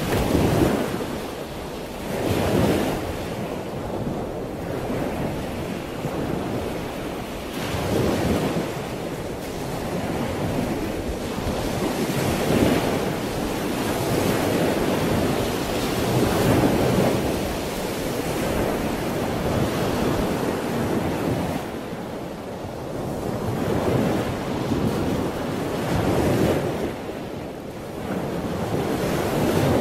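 Ocean surf washing on a rocky shore, a steady rush of water that swells and ebbs every few seconds.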